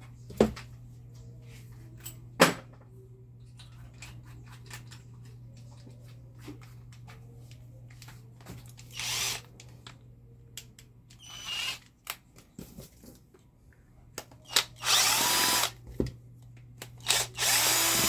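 Cordless drill/driver: handling clicks as a Phillips bit is fitted and brief spins around the middle, then two longer runs near the end as it backs out the two Phillips screws from a plastic hair-dryer handle, the motor pitch sliding as the trigger is eased. A steady low hum lies underneath.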